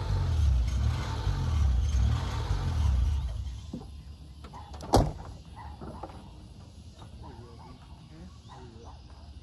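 Loud truck engine and exhaust rumbling low and unevenly, dying away about three and a half seconds in. A single sharp knock, like a door shutting, about five seconds in.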